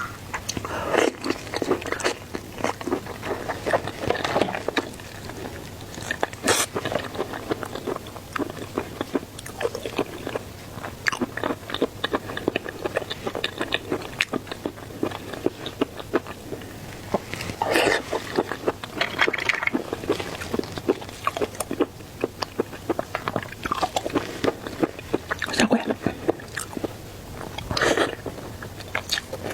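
Close-up eating sounds of seafood: wet chewing and biting with irregular crunches and clicks, and a few louder crunching bites spread through.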